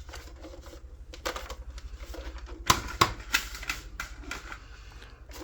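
Scattered sharp plastic clicks and clacks, about seven spread through the middle of the stretch, from handling a Nerf Rival Hypnos blaster and its magazine.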